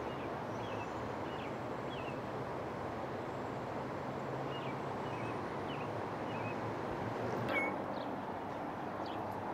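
Small birds chirping in short, quick calls about twice a second, one louder call near the end, over a steady rushing background noise.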